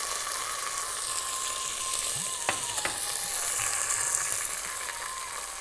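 A spice tempering sizzling steadily in hot ghee in a steel pot: dried red chillies, mustard and cumin seeds, fenugreek, curry leaves and freshly added green chillies frying. A couple of light ticks come about halfway through.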